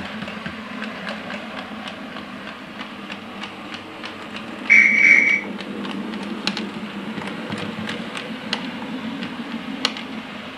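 Model railway train running along the track, with a steady low running hum and scattered light clicks. One short, high toot about five seconds in is the loudest sound.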